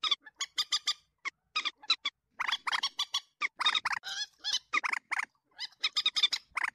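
Common moorhen calling: quick sharp clicks at first, then harsh, stuttering calls repeated in short runs with brief gaps.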